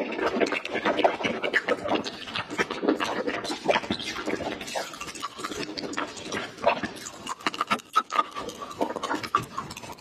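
Close-miked ASMR mouth sounds of eating soft jelly candy: chewing and sucking, with many small irregular clicks and smacks.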